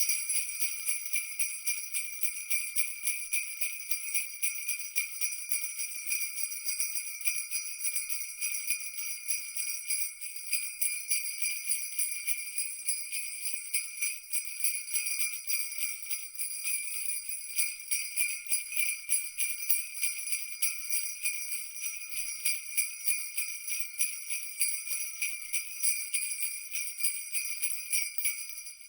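Jingle bells shaken continuously: a bright, dense jingling with a quick pulsing rhythm from the many small bells striking.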